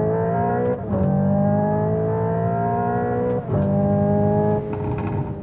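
Hyundai Ioniq 5 N's synthetic engine sound accelerating through its simulated gears: a rising engine note that drops sharply at each fake upshift, about a second in and again about three and a half seconds in, then holds a steadier note near the end.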